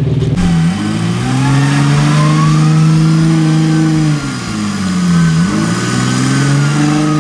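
Off-road Jeep engine revving hard under load while stuck in deep mud: the revs climb and hold for a few seconds, drop briefly a little after four seconds in, then climb and hold again.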